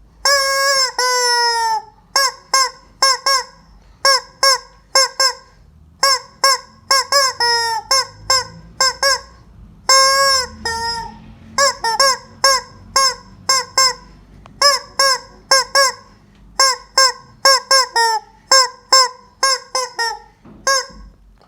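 A hen screaming: loud, repeated squawks in quick runs, with a few longer drawn-out calls that fall in pitch at the start, around a third of the way in and near the middle. The calls stop shortly before the end.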